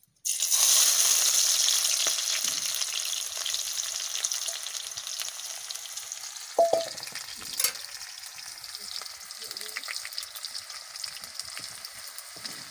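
Sliced onions dropped into hot oil in a kadai, starting to sizzle at once, loudest at first and slowly dying down as they fry. A ladle stirs them, with two short knocks around the middle.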